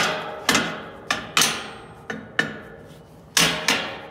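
Sharp metal-on-metal knocks on steel test plates being tapped into alignment, about seven irregular strikes, each with a short metallic ring.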